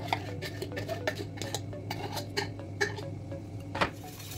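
Metal spoon clinking and scraping against the inside of a tin can while scooping out thick dulce de leche: irregular light clicks, about two or three a second, with one louder knock near the end.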